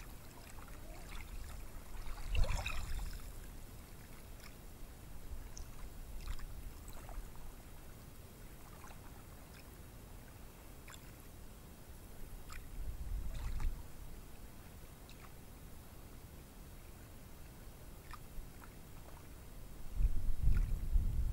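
Ocean surf washing on a beach, a soft steady hiss with faint scattered crackles, broken by deep rumbling surges three times: about two seconds in, a little past the middle, and near the end. The loudest moment is a brief rush about two seconds in.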